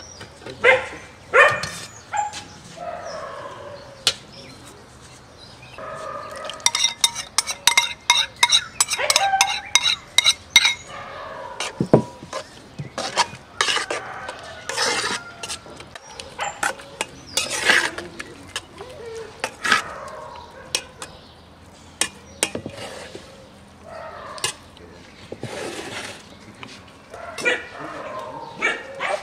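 A metal skimmer clinking and scraping against a stainless steel colander and an aluminium pot as drained rice is ladled out. The clinks are repeated and come in a quick run between about seven and ten seconds in.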